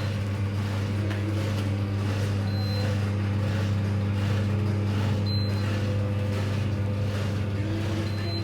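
Electrolux dishwasher giving a steady electrical hum, with three short high beeps about three seconds apart: the machine signalling error code i10, which means it is not filling with water.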